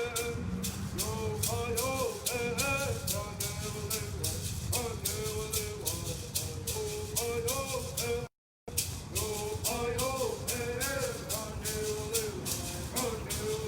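Kumeyaay bird song: two men singing together to the steady shake of gourd rattles, about four shakes a second. The sound cuts out for a fraction of a second about eight seconds in.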